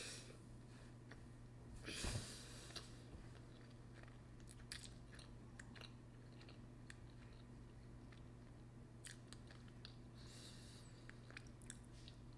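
Faint close-up chewing of soft noodles, with small wet mouth clicks scattered through, and a short louder noise about two seconds in.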